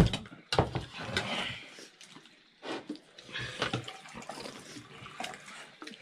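Eating sounds at a table: irregular clicks of spoons against plates and bowls, with short slurping and chewing noises from people eating dumplings and soup.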